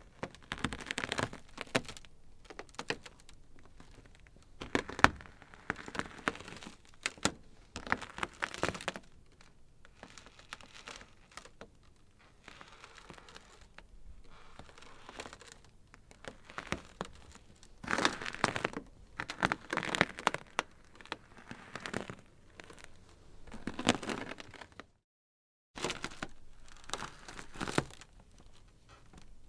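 Ice crackling: irregular clusters of sharp cracks and fizzing crackles, some louder snaps standing out among fainter ones. The sound cuts out completely for under a second about 25 seconds in, then resumes.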